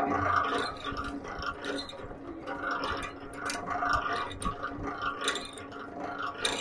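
Stainless steel centrifugal honey extractor spinning honeycomb frames: a steady mechanical whir with scattered clicks and rattles.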